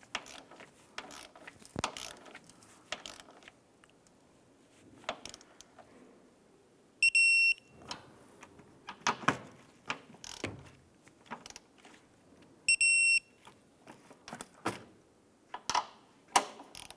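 Torque wrench ratcheting and clicking as it tightens the upper strut mount nuts. Twice, a little past seven seconds in and again near thirteen seconds, a short electronic beep sounds: the wrench signalling that the 63 ft-lb setting has been reached on a nut.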